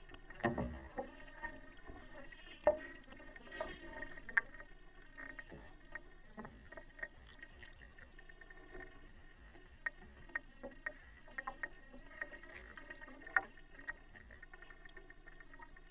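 Water sloshing and gurgling as hands work a burger and its cardboard box underwater, with irregular soft knocks and clicks from the handling. The knocks are strongest in the first few seconds.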